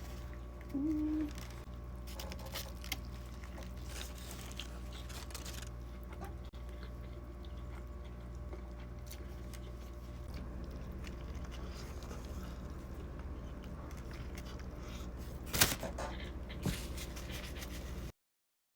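Quiet chewing and small mouth and wrapper sounds over a steady low hum, with a brief hummed note about a second in and two sharper clicks near the end; the sound cuts off just before the end.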